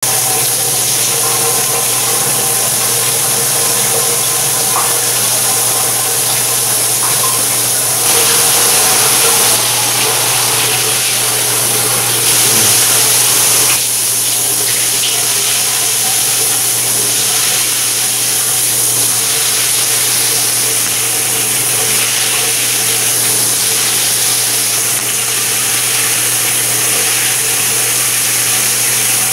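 High-pressure shower head spraying water, a steady hiss with a low hum beneath it. It grows louder briefly about eight seconds in and again about twelve seconds in.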